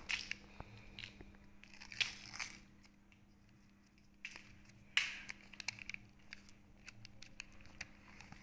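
Foil lid and plastic candy cup being handled: crinkling foil and small plastic clicks and rustles, with louder crackles about two seconds in and again about five seconds in.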